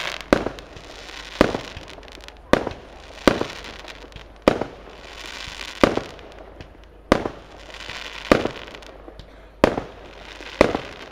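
Aerial fireworks shells bursting: about ten sharp bangs, one every second or so, with a hiss between them.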